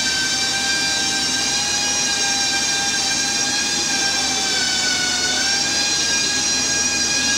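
Loud, steady high-pitched mechanical whine with a ladder of overtones, dipping slightly in pitch about five seconds in.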